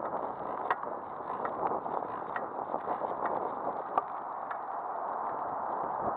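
Steady rushing noise of wind over the microphone and tyres on the road from a moving bicycle, with a few small clicks and rattles, the sharpest about four seconds in.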